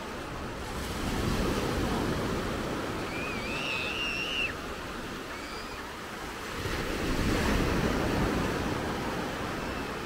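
Small waves breaking and washing up a sandy shore, the surf swelling twice, about a second in and again near seven seconds. A brief high wavering call sounds about three seconds in.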